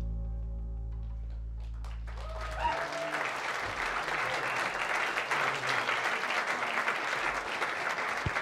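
The jazz band's final chord rings out with a deep, steady bass note underneath, then stops about two and a half seconds in. Audience applause with a cheer follows and carries on.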